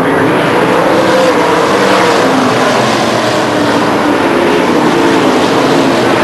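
Several dirt late model race cars' V8 engines running hard together, their engine notes rising and falling as the cars work around the oval.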